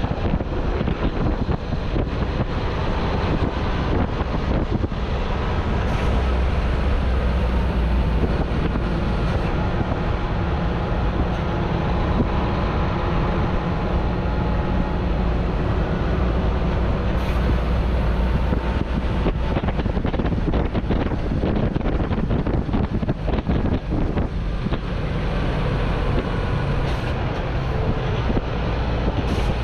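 Hino semi-truck tractor on the move, its diesel engine running steadily with tyre and road noise, and wind buffeting the microphone mounted above the cab.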